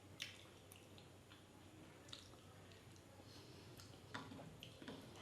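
Near silence broken by a few faint, short, wet clicks and squishes of eating: mouth sounds of chewing a mouthful of fish curry and rice.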